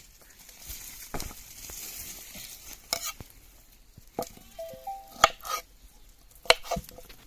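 Dry, papery crackling and rustling of garlic skins being peeled and fresh mint sprigs being handled, with a string of sharp clicks and taps through the second half.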